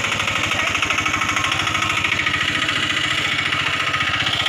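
A small engine running steadily nearby, with a fast, even chugging.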